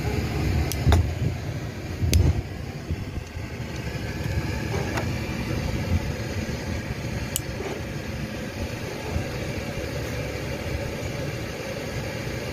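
Steady low rumble of a motor vehicle's engine, with a few sharp clicks and two thumps about one and two seconds in.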